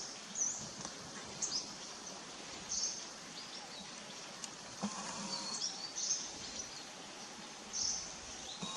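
Short high-pitched bird chirps repeating roughly once a second over a steady outdoor hiss.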